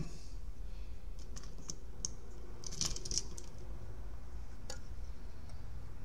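A few light clicks and taps from handling a car engine computer's circuit board in its metal case, with a small cluster about three seconds in, over a steady low hum.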